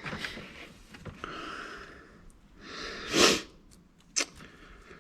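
A person's breath sounds: soft rushing breaths, then one short, loud sniff or puff of breath a little after three seconds in, and a sharp click just after it.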